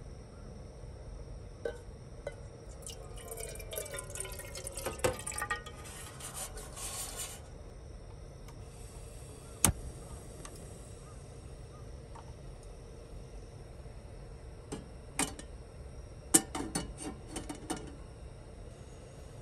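Liquid poured into a small container for a few seconds, rising in pitch as it fills. It is followed by a sharp click and then a run of light clicks and knocks of utensils or containers being handled.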